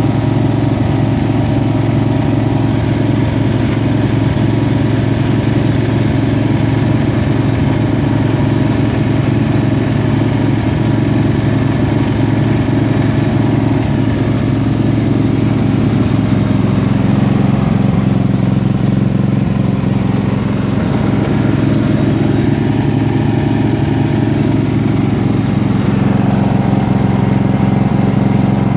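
Small engine running steadily at a constant speed, powering a portable gold sample mill.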